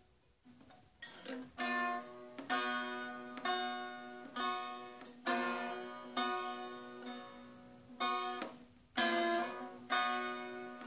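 Turkish saz (bağlama), a long-necked lute, picked slowly, one note about every second, each ringing and fading over a steady low drone. The playing starts about a second in and breaks off briefly near the end.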